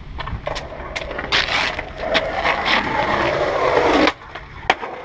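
Skateboard wheels rolling on pavement and getting louder, then a scraping slide down a metal stair handrail that cuts off suddenly about four seconds in, followed by the sharp smack of the board landing.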